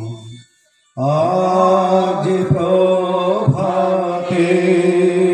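Men chanting a Hindu mantra in long, held notes. The chant breaks off for a moment near the start and resumes about a second in.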